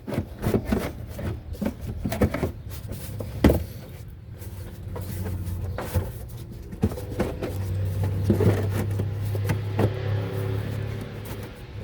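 Irregular clicks and knocks of plastic engine-bay parts, a shroud and wiring, being handled and pushed into place by hand.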